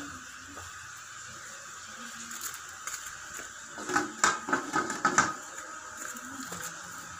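A metal lid set on a metal cooking pot over a wood fire: a short run of clinks and knocks between about four and five seconds in, over a steady faint hiss.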